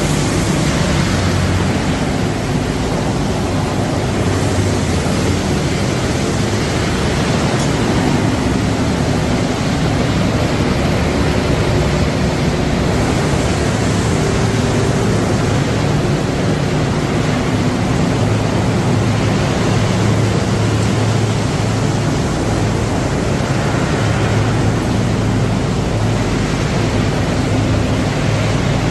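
Running machinery of a rotary biochar production line: a loud, steady noise with a low hum underneath, without letting up.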